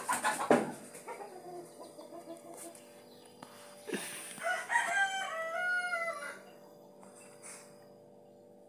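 Rooster crowing: one long call a little past the middle. A loud burst of chicken calls comes at the start.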